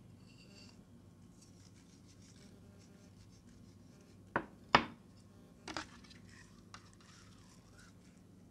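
A glass bowl knocking sharply twice against a hard surface about halfway through, then a softer knock and a light tick, over a faint steady hum.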